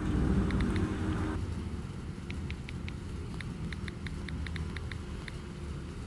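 Light, sharp clicks from a phone's on-screen keyboard as a word is typed, about a dozen and a half taps coming singly and in quick runs, over a steady low background rumble that is louder in the first second or so.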